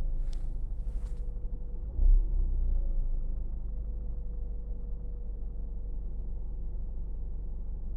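2017 Ford Mustang's 2.3 L turbocharged four-cylinder EcoBoost engine idling in drive. It surges briefly about two seconds in, then settles back to a steady low idle. Two short hissing sounds come in the first second.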